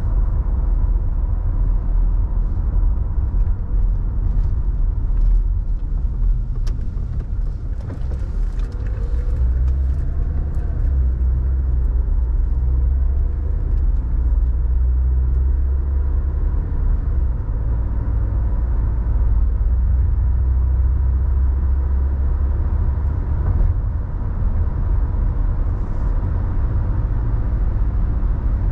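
A car driving at road speed, heard from inside the cabin: a steady low rumble of tyres and engine.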